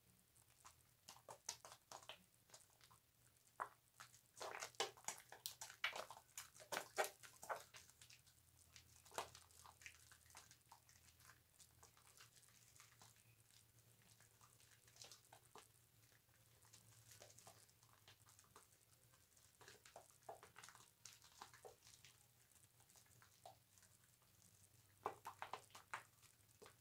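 Faint, irregular wet squishing and crackling of bar-soap lather being worked and squeezed, with clusters of quick crackles in the first third and again near the end.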